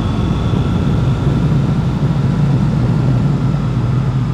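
Triumph Bonneville T100's parallel-twin engine running steadily while the motorcycle cruises along a road, heard from the rider's onboard camera.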